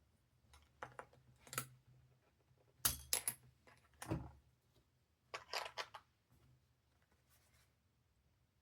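Irregular clicks, taps and short rustles of a keyboard and its packaging being handled, with the sharpest clicks about three and four seconds in and a quick cluster of taps between five and six seconds.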